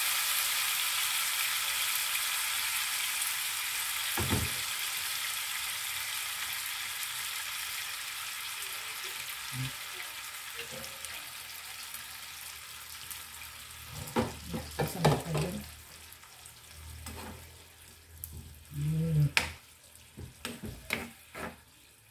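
Pork and sautéed aromatics sizzling in an oiled frying pan, the sizzle fading steadily as cooked mung beans and broth are ladled in. A metal spoon clinks and scrapes against the bowl and pan a few times in the second half.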